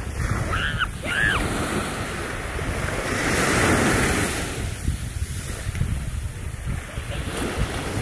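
Small waves breaking and washing up a sandy beach, the surf swelling loudest about three to four seconds in, with wind rumbling on the microphone. Two short high calls sound about a second in.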